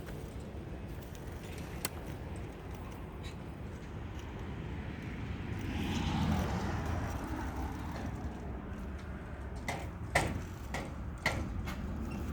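Wind noise on the microphone, a low rumble that swells in a gust about halfway through. A few sharp clicks come near the end.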